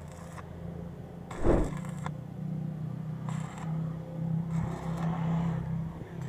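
A steady low machine hum, with scraping and handling noises from tool work and a loud knock about one and a half seconds in.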